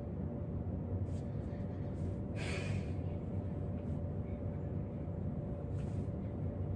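Steady low room rumble with a faint hum, and a single audible breath from a person about two and a half seconds in.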